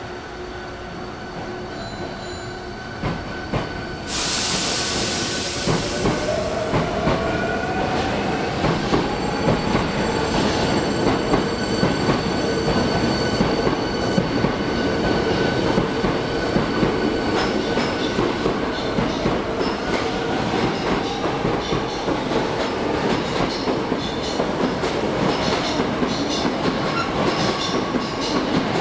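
Hankyu 8300-series electric train pulling out of a station: a short burst of air hiss about four seconds in as it starts, then the traction motors whine, rising in pitch as it gathers speed. Wheels click over the rail joints more and more often.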